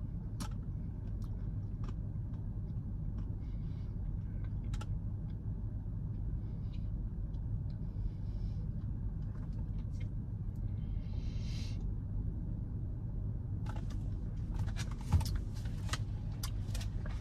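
Steady low rumble of a car idling, heard from inside the cabin, with faint mouth and spoon clicks from someone eating a thick milkshake. A soft thump comes about fifteen seconds in.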